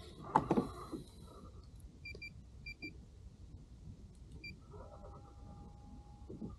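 A few sharp knocks, then short high electronic beeps, some in pairs. From about five seconds in, a small electric motor whines steadily for under two seconds.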